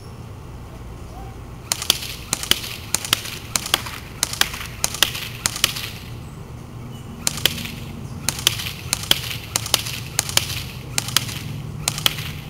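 Classic Army MP5A2 airsoft electric gun (AEG) firing single shots, about two a second, in two strings with a pause of about a second between them.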